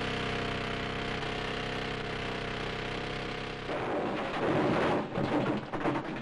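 A steady machine drone, then about three and a half seconds in a loud, irregular crashing rush of blasted rock falling in a mine stope, with sharp surges near the end.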